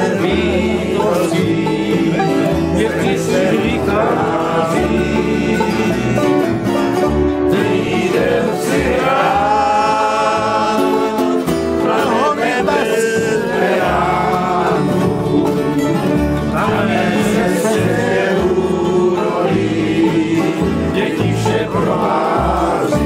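Acoustic guitars, a mandolin and a banjo strumming and picking a Czech tramp song together.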